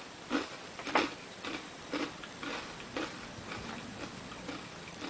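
Mouth chewing a crunchy tteokbokki-flavoured rice snack: crisp crunches about two a second, loudest in the first second and growing fainter.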